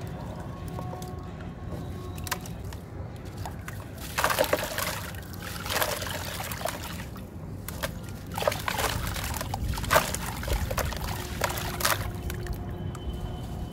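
Gritty sand chunks crumbled by hand, the loose sand running from the fingers into a tub of water in several separate bursts from about four seconds in.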